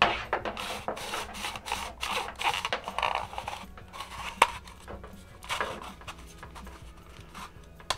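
Cheap plastic security camera worked in the hands, its housing creaking and rubbing in a run of irregular scraping noises with clicks and a sharp click about four seconds in. The flimsy sound shows how cheaply it is built.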